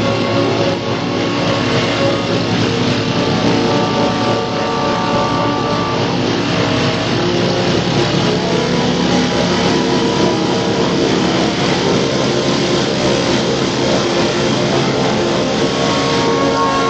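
Piston aircraft engine running steadily at high power during a takeoff run, with a constant rush of wind and air noise.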